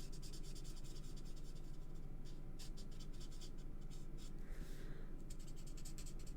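Alcohol marker nib scratching across paper in many quick, short colouring strokes.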